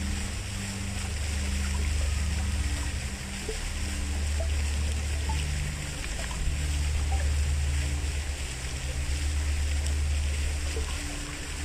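Steady rush of flowing stream water under soft ambient music of slow, held low notes that change every second or so.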